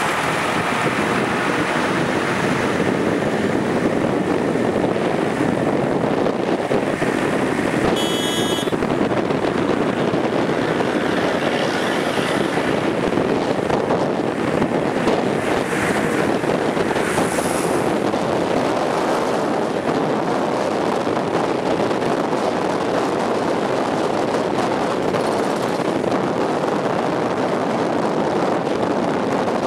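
Steady running noise of a moving train heard through an open window, with wind buffeting the microphone. A short high-pitched tone sounds once about eight seconds in.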